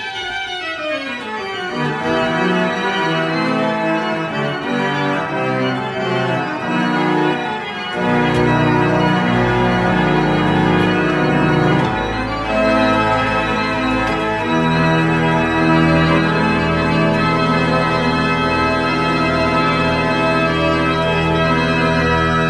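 1822 Walpen pipe organ playing a piece with full chords. Deep bass notes join about eight seconds in, and a held low bass sounds under the chords from about two thirds of the way through.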